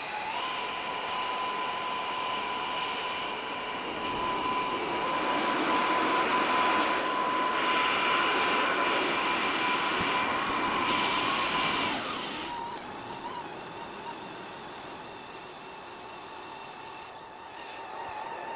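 Ninja CREAMi running its ice cream program on a frozen protein-milk base: a steady high motor whine. About four seconds in it gets louder and noisier as the spinning blade works into the frozen pint, and about twelve seconds in it drops back to a quieter whine.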